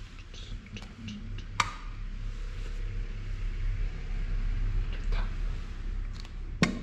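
Tableware clinking and knocking on a dinner table: a few sharp clinks of glass, plates and cutlery, the loudest near the end as a juice glass is handled, over a low steady hum.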